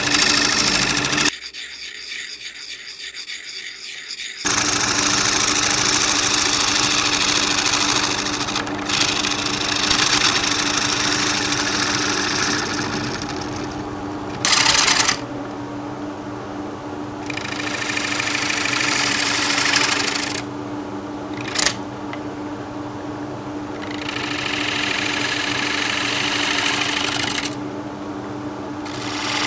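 Wood lathe running with a steady hum while a turning tool cuts the face of a large spinning oak platter, making long stretches of hissing, scraping noise. The cutting noise stops several times as the tool is eased off the wood, leaving the hum.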